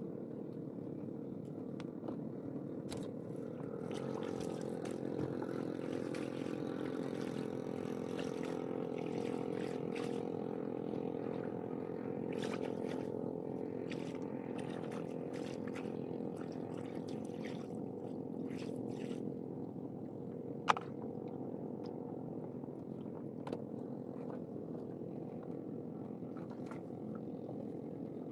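A motor engine running steadily, a little louder for several seconds early in the stretch, with scattered light clicks and one sharp click about 21 seconds in.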